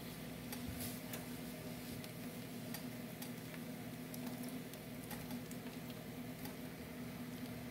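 Bread firfir frying faintly in a nonstick pan, with scattered light clicks and taps as a spatula pushes avocado off a plate into the pan. A steady low hum runs underneath.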